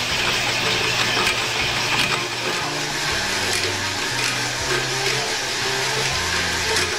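Electric drill spinning a hone inside the cast-iron steam cylinder of a Westinghouse locomotive air compressor: a steady grinding scrape with a few sharp clicks. Background music with a stepping bass line plays under it.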